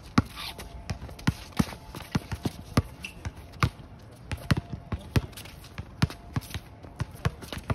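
Basketball being dribbled on a hard outdoor court: repeated sharp bounces at an uneven pace, about two to three a second, as the ball-handler works against a defender.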